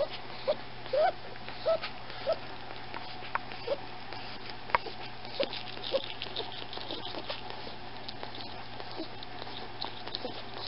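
A small pet's breathing with short squeaky wheezes, several close together in the first couple of seconds and sparser after, over faint scratchy rustling. The wheezing is a sign of a breathing problem that the owner wants a vet to diagnose.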